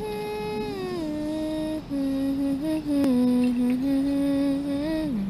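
A single voice humming a slow melody in long held notes that glide smoothly from one pitch to the next, stepping lower overall and dropping once more near the end.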